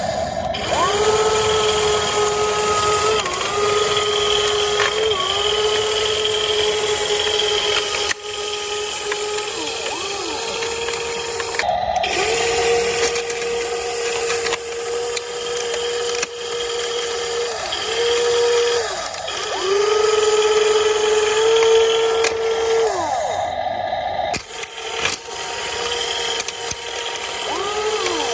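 Electric drive motors and gearing of a WLtoys WL 16800 metal RC excavator whining in repeated spells of a few seconds, each one gliding up in pitch as a motor starts and sliding down as it stops. A few sharp knocks come in between.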